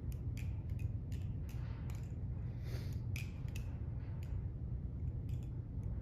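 Hazetac Devil balisong (butterfly knife) with titanium handles on bushings being flipped: quick, irregular metallic clicks and clacks as the handles swing around the blade and strike each other and the tang. A steady low hum runs underneath.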